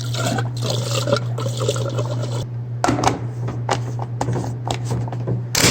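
Gasoline pouring from a can into a riding mower's fuel tank, over a steady low hum; about halfway through the pouring gives way to a string of clicks and knocks.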